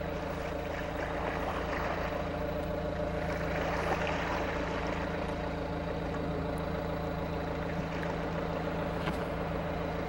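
Engine or motor running steadily at constant speed, a low even drone with a fixed hum.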